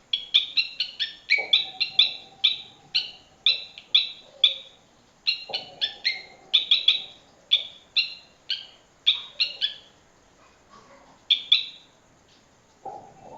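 Runs of sharp, high chirps, about two or three a second, with a lower ringing tone that sets in suddenly three times and fades. The uploader presents this as the natural sound of an earthquake recorded from underground.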